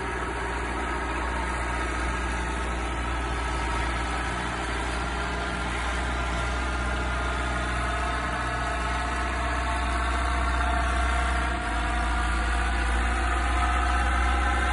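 Ford 5880 tractor's diesel engine running steadily under load as it pulls a cultivator through the soil, growing a little louder near the end.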